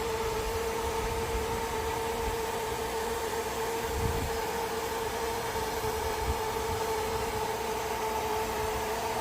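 Hitachi 20-horsepower air conditioner running steadily: an even hum with a constant mid-pitched whine over a rush of fan air.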